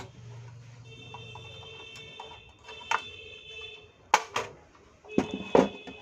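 Sharp clicks and knocks from handling a car stereo's sheet-metal case as it is turned over, the loudest a pair of knocks about four seconds in. Behind them is a steady high tone of several pitches, which breaks off for about a second and a half and then returns.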